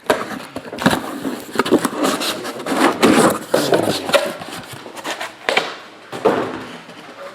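Heavy packing tape on a sealed box of trading cards being cut and pulled off, with repeated irregular scraping and crackling of tape and cardboard.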